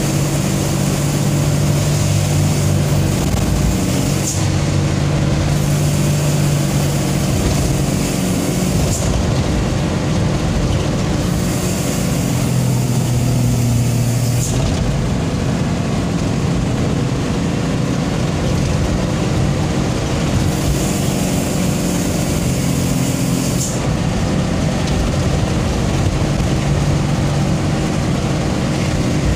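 Mitsubishi Fuso truck's diesel engine running under way, with road noise, heard from inside the cab. The engine note holds steady, dipping lower for a couple of seconds about halfway through.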